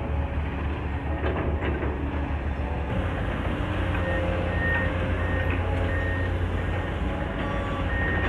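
Heavy earthmoving machinery (excavators and trucks) running with a steady low engine rumble. From about four seconds in, a backup alarm beeps repeatedly at an even pace.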